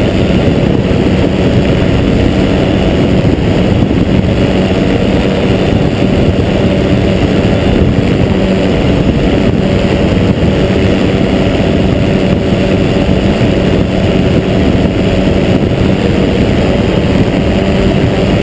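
Pegasus Quik flex-wing microlight in cruising flight: its engine drones at a steady pitch, mixed with a loud rush of wind on the microphone.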